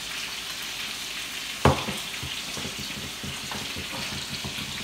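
Ribeye steak sizzling steadily in a hot pan in butter and avocado oil. A single sharp knock about a second and a half in, with a few light ticks after it, as the glass oil bottle is set down on a wooden cutting board.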